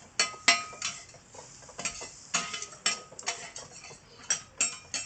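Two steel spatulas scraping and clinking against a flat steel griddle as the cook turns and gathers pieces of grilling offal. It is a quick, uneven run of about a dozen ringing metallic scrapes and taps, two or three a second.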